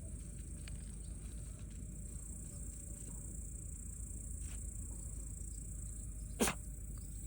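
A steady, high-pitched chorus of insects chirping, with a single short, sharp sound about six and a half seconds in.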